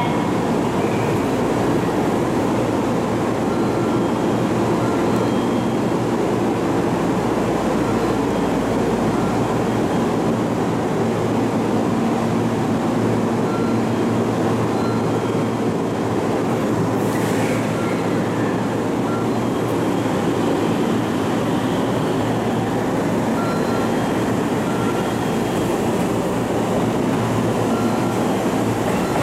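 JR Central 313 series 1000-subseries electric train departing from a station platform: its doors close, a short hiss of air comes about halfway through, and it pulls away, under a steady, dense rumble of train and station noise.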